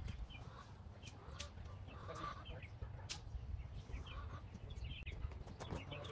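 Chickens clucking softly, with a few light knocks.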